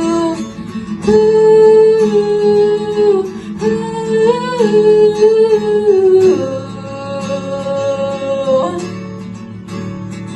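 Acoustic guitar accompaniment under a singer holding three long wordless notes, each a couple of seconds or more, sliding slightly between pitches.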